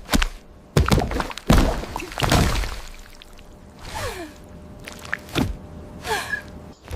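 AI-generated eating ASMR sounds: a run of sharp bites and thuds at uneven intervals, with two short falling tones about four and six seconds in.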